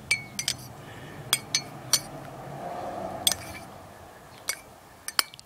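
Metal teaspoon stirring Polymorph granules in hot water in a ceramic mug, clinking against the inside of the mug about ten times at irregular intervals.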